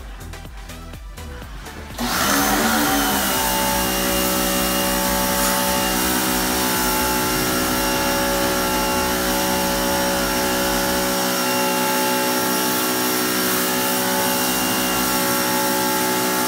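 Electric pressure washer motor spinning up about two seconds in, then running at a steady pitch as a whine with many overtones, stopping near the end.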